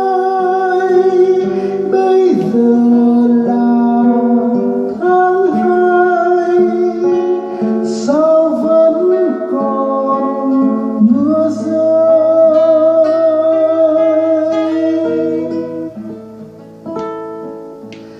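Instrumental interlude of a slow ballad on acoustic guitar, with a held, wavering melody line over it. It fades down over the last few seconds.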